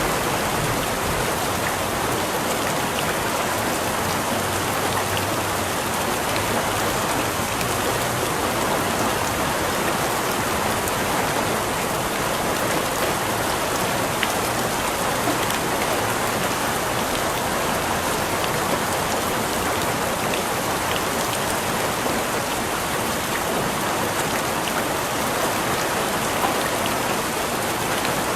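Steady rain falling and pattering on surfaces, an even hiss with scattered individual drop ticks.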